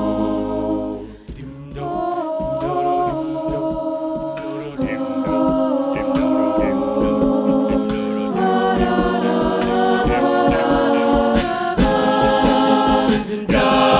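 A cappella ensemble singing sustained, shifting vocal chords with no lead lyrics, over a steady vocal-percussion beat. The sound thins out briefly about a second in, then the chords come back in.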